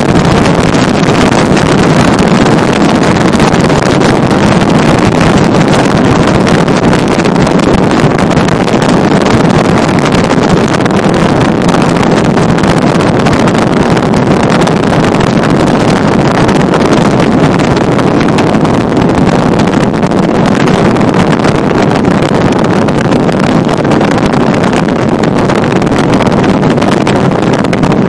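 Steady road and wind noise of a car driving at highway speed, heard from inside the car.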